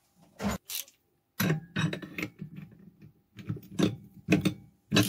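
A socket and ratchet are fitted onto a moped engine's clutch nut: two sharp metal clicks, then a run of irregular clicking and clattering of metal on metal, several clicks a second.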